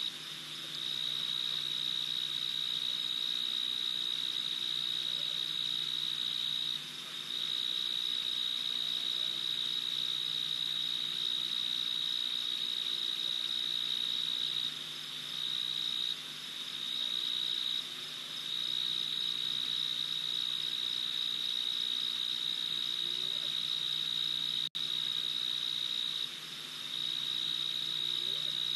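Night insect trilling steadily at one high pitch, in long runs broken by short pauses every few seconds.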